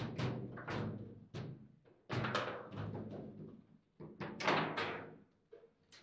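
Table football play: the hard ball is struck by the rod figures and knocks off the table's walls. An irregular string of sharp knocks and thuds, each ringing briefly through the table, with the loudest cluster about four and a half seconds in.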